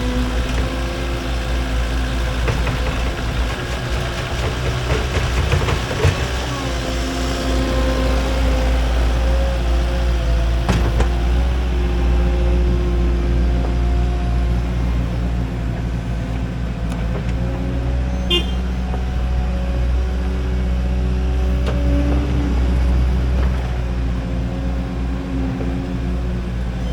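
An engine running steadily with a deep drone, its pitch shifting now and then.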